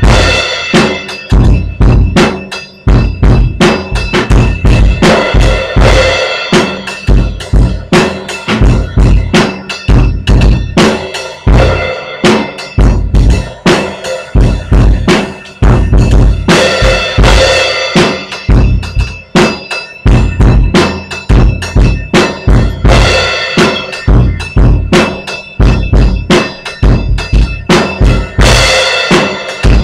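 A Pearl drum kit played solo in a dense, fast run of bass drum and snare strokes, with cymbals washing over the beat and swelling up several times in the second half.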